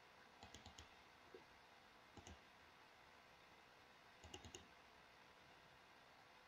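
Faint computer mouse clicks in small groups: a quick run of clicks about half a second in, a double click around two seconds, and another quick run just after four seconds.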